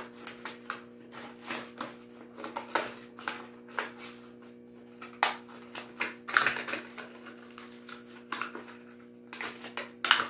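Packaging of a diecast toy truck being opened by hand: irregular crackling, clicking and tearing of plastic and card.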